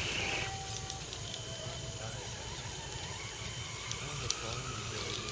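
Scale RC crawler trucks driving over leaf litter: a steady low whir of electric motors and drivetrains, with a few small crackles from leaves and twigs.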